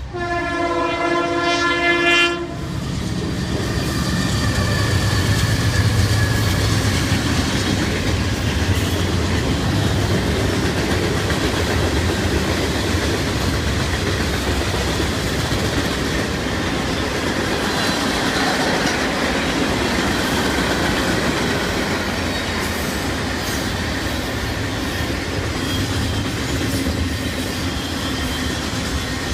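Norfolk Southern freight locomotive's air horn sounding a multi-note chord for about two and a half seconds, odd-sounding and slightly fouled. The train then rolls past with a steady rumble and clickety-clack of wheels over the rail joints, with faint wheel squeal.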